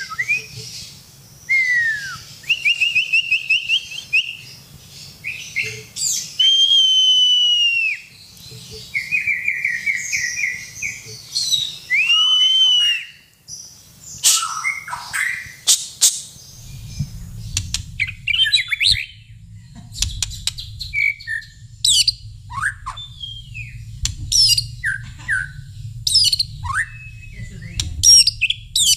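White-rumped shama song: clear whistled notes that rise and fall, and trilled phrases. About halfway through it turns to a faster run of short, sharp notes over a low steady hum.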